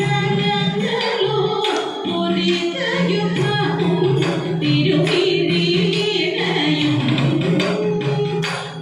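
Women singing a Thiruvathirakali song in chorus, a sustained Carnatic-style melody with instrumental accompaniment and a few sharp strikes on the beat.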